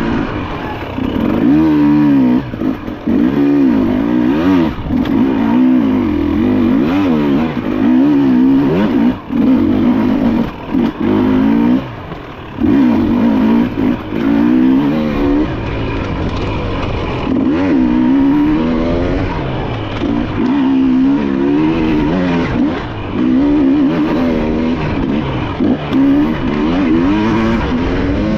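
Dirt bike engine ridden hard on an enduro trail, its pitch rising and falling over and over as the throttle is worked. A few short sudden drops in the middle where the throttle is chopped.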